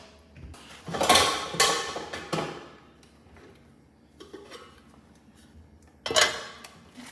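Metal cooking pot clattering and clanking as it is handled and set down: three quick clanks about a second in, and one more near the end.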